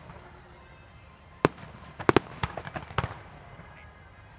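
Fireworks display: after a short lull, one sharp bang about a second and a half in, then a quick cluster of cracks and pops between two and three seconds in.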